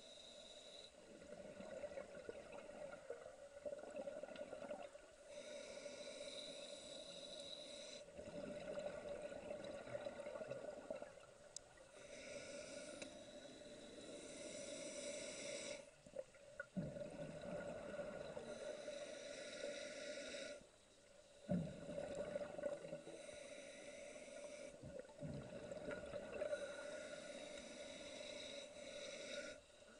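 Scuba diver breathing through a regulator underwater: a long hissing breath every five or six seconds, alternating with bubbling and gurgling, over a steady hum.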